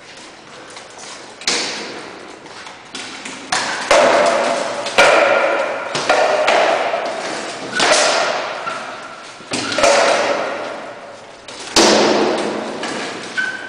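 SCA heavy-combat sparring: rattan swords striking shields and armour, about eight sharp blows, each ringing and echoing as it fades, some with a metallic ring from a steel buckler.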